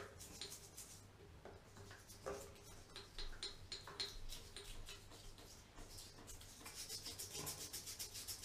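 Faint bristle scratching and light clicking as a toothbrush works a baking soda and vinegar paste onto a chrome tap, quickening into a fast run of scrubbing strokes about six seconds in.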